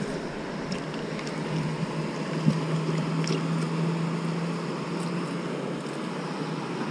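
Steady rush of flowing water with wind on the microphone, a low steady hum through the middle and a few faint ticks.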